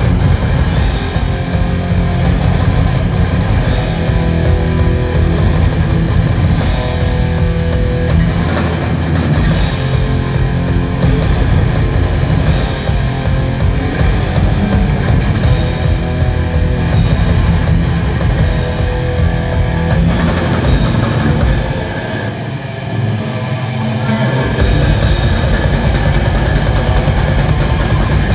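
Metal band playing live at full volume: distorted electric guitars, bass and a drum kit. About 22 seconds in, the drums and low end drop out for a couple of seconds, then the full band comes back in.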